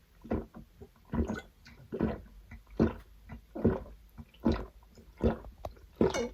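A person chugging energy drink, gulping in an even rhythm of about five swallows every four seconds.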